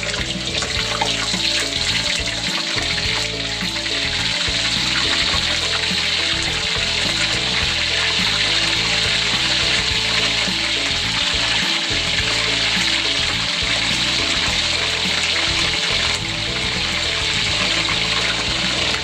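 Chicken pieces deep-frying in hot oil in a wok, a loud, steady sizzle that grows over the first few seconds as more pieces go in. Background music plays underneath.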